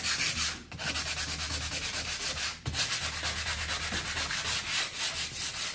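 Sandpaper rubbed by hand over a wooden kitchen cabinet front in fast, even back-and-forth strokes, with two short breaks: the surface being sanded smooth to prepare it for filler and paint.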